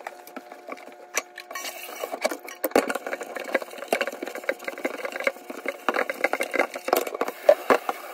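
Dishes being washed by hand in a kitchen sink: a run of clinks, knocks and clatter of dishes and cutlery with rubbing and splashing, growing busier about three seconds in.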